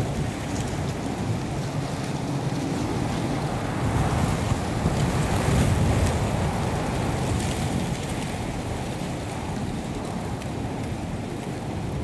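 Wind blowing on the microphone, a steady low noise that swells between about four and six seconds in.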